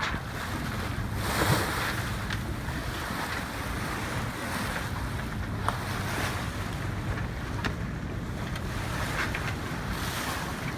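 Water rushing and splashing along the hull of a sailing yacht, with wind buffeting the microphone and a steady low hum underneath; a louder wash of water about one and a half seconds in.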